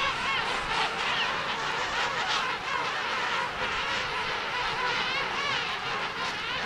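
Penguin colony calling: a dense chorus of many overlapping, wavering calls, with a steady low rumble underneath.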